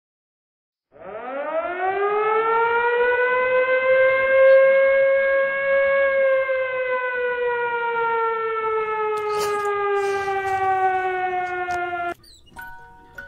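Civil-defence style air-raid siren sound effect: one long wail that rises steeply, holds, then slowly falls in pitch before cutting off abruptly near the end.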